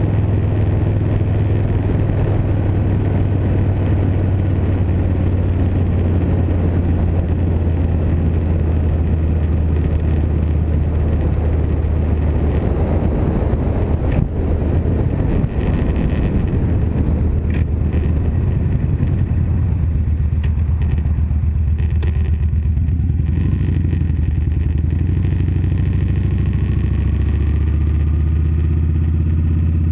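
2012 Victory Vegas 8-Ball's V-twin engine running steadily while riding, heard with wind noise on a handlebar-mounted camera's microphone. The wind noise drops away about two-thirds of the way through.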